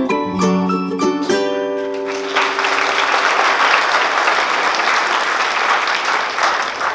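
Dance music with picked notes ends on a held chord about two seconds in, and an audience breaks into applause that carries on.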